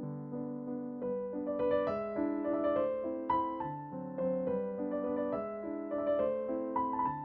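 Background piano music: a light melody of quick, changing notes over a steady accompaniment, getting busier about a second in.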